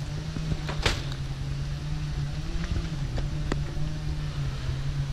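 A steady engine or motor hum holding one pitch, over a low rumble, with a sharp click about a second in.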